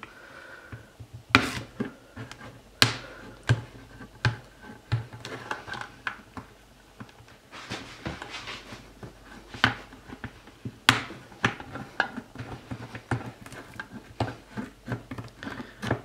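Lever-type can opener of a Victorinox Bantam Swiss Army knife's combination tool cutting around the rim of a tin can lid. Short sharp metallic clicks, one per levering cut and irregularly spaced about a second apart, with a softer scraping stretch midway.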